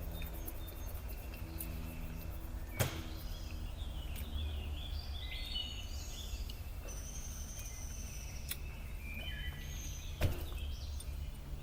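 Steady low background rumble with birds chirping from about four seconds in until near the end. Two sharp clicks, one about three seconds in and one near the end.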